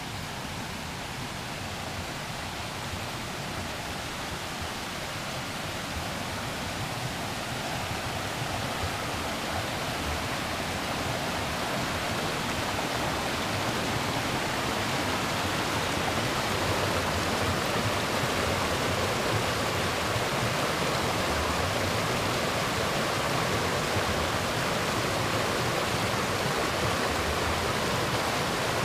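Mountain creek rushing and splashing over rocks and small cascades: a steady rush of water that grows louder through the first half and then holds level.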